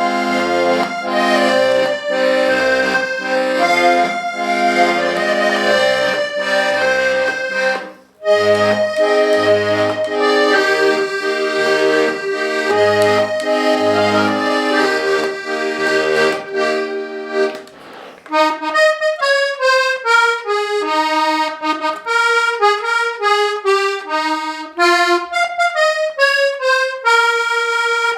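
Hohner Corona III diatonic button accordion in BbEbAb tuning being played: held treble chords over a steady pumping bass-button accompaniment, with a brief break about eight seconds in. From about eighteen seconds the bass drops out and it plays a quick single-note melody in falling runs.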